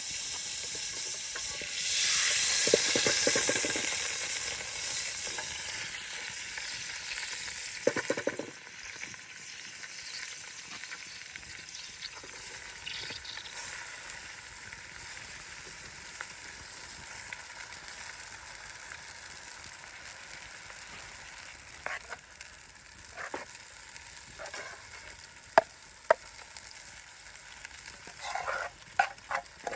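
Food frying and sizzling in a pan over a campfire while it is stirred. The sizzle swells loudly about two seconds in and settles to a steady hiss, with sharp clinks of the utensil against the pan around eight seconds and several more near the end.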